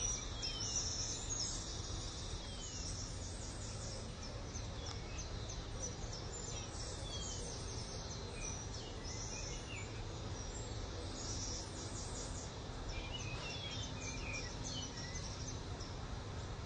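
Natural ambience: many birds calling, with short falling whistles every second or two and a dense high chirping of birds or insects, over a low steady rumble.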